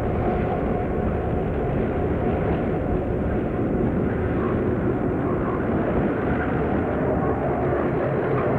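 RENFE diesel locomotive hauling a freight train, its engine running with a steady, loud drone as it approaches and draws up close past the listener.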